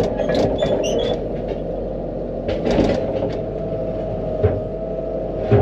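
Excavator engine running steadily with a steady hydraulic whine while the machine rolls a ripper attachment into place, with short metal knocks and clunks, a louder clunk at the very end.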